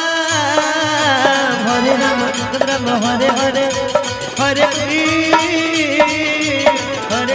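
Indian devotional kirtan music: an electronic keyboard plays a sliding, bending melody line over a steady percussion beat with small clicking hand percussion.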